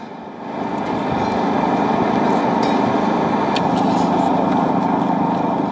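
Steady outdoor background noise, rising about half a second in and holding level.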